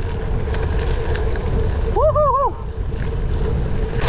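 Wind buffeting the microphone of a camera riding on a gravel bike, over the rolling noise of tyres on a dirt track. About two seconds in, a short high tone wavers up and down a few times for half a second.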